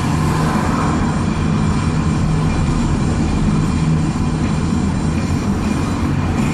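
Steady road and engine noise inside a moving car's cabin, with no sudden events.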